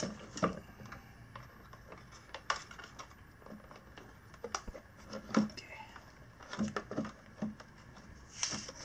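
Scattered clicks and light knocks as a sealed lead-acid scooter battery's plastic case and its wires are handled and pressed into the metal battery tray of an electric scooter frame.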